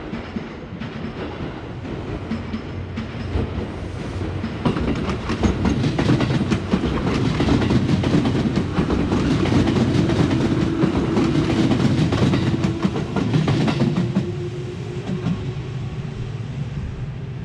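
Nara Line electric train passing close by. The rumble builds over a few seconds, is loudest through the middle with wheels clattering over the rail joints, then eases off. A steady hum sounds in the later part.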